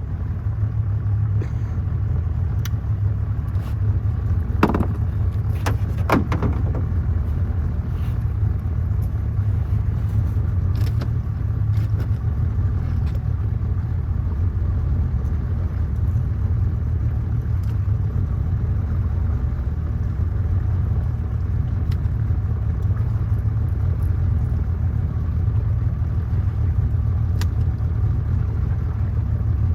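Boat's outboard motor running steadily under way, a constant low hum, with a couple of brief knocks about four and six seconds in.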